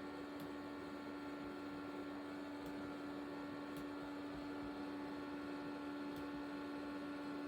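Steady electrical hum with one constant tone, and a few faint, sharp clicks scattered through it.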